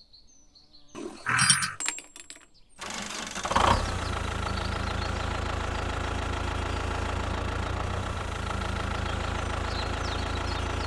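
A small motor of a DIY mini tractor model starts about three seconds in and runs steadily, with a constant hum, after a few brief handling knocks.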